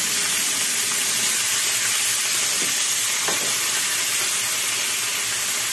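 A whole marinated chicken frying in hot oil in a frying pan, sizzling steadily.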